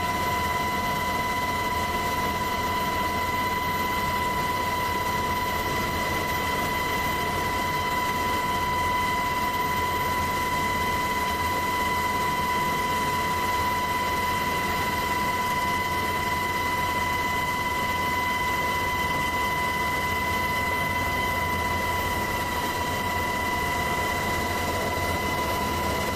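UH-60 Black Hawk helicopter heard from on board: a steady drone with a constant high whine.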